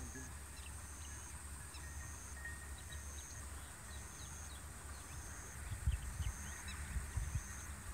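Rural outdoor ambience: small birds chirping over a low steady rumble, with a high note pulsing about once a second and a faint steady high hiss. A few low thumps come near the end.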